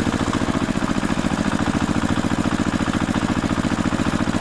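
An engine idling steadily, with an even, rapid chugging rhythm.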